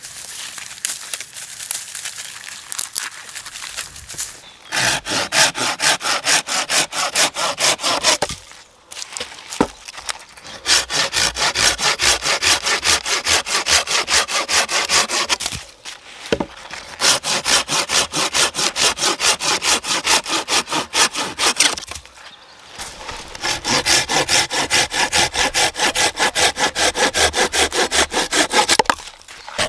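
Hand saw cutting through wood in fast back-and-forth strokes, in four bouts with short pauses between them, after a few lighter strokes at the start.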